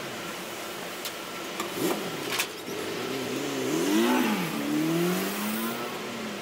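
A motor vehicle engine revving nearby, its pitch rising and falling a few times before fading out, preceded by a few sharp clicks.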